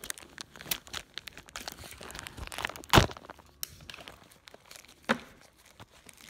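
Handling noises of a steel impact socket and its packaging: crinkling and clicking, with one sharp thunk about three seconds in and a smaller knock about two seconds later.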